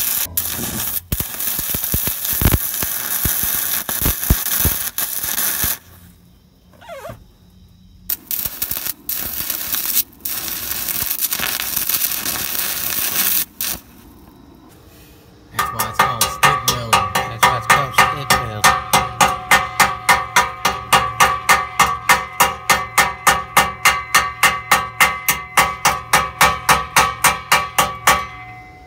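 Stick welding arc crackling and spitting as the rod burns, in two runs that break off about six seconds in and again about halfway. In the last part a different rhythmic pulsing sound with a steady tone in it takes over, about three pulses a second.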